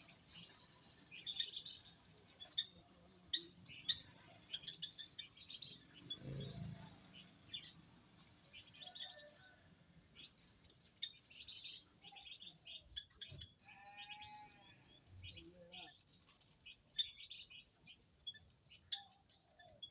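Small birds, common ioras (cipoh), chirping in an aviary with many short, high, scattered chirps. About two-thirds of the way in comes one high whistled note, followed by a longer, lower wavering call.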